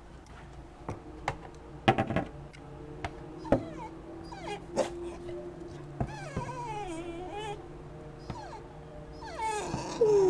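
A corgi whining and whimpering, agitated at an owl decoy. There is a long held whine, wavering high whimpers midway and steep falling whines near the end. A few short sharp sounds come in the first half.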